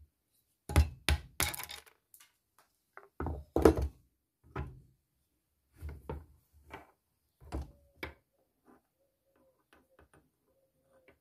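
Sharp knocks of hammer blows on a steel punch, driving the old wooden handle stub out of the eye of a hammer head clamped in a vise. About ten strikes in uneven bursts, loudest in the first four seconds, lighter after that, with a few faint clicks near the end.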